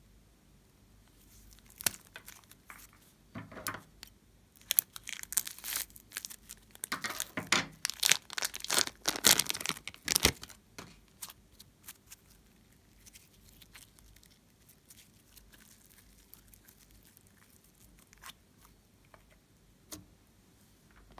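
Thin plastic piping bag crinkling and crackling as it is squeezed and peeled off glittery slime. There is a dense run of crackles for several seconds through the middle, then only a few faint handling clicks.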